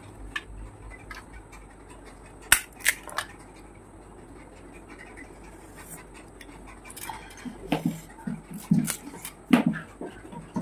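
Eating panipuri close to the microphone: a few sharp cracks of crisp puri shells about two and a half seconds in, then a run of crunchy chewing over the last three seconds.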